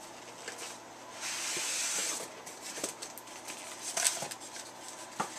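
Rustling and scraping of packing and a figure being pulled out of a cardboard collectible box, with a longer sliding rustle about a second in and a few light knocks after it.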